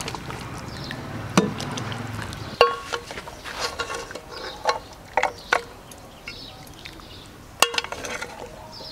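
Metal ladle clinking against a glass serving bowl and the cooking pot while gravy is served out: about half a dozen sharp, ringing clinks, the loudest about one and a half and seven and a half seconds in.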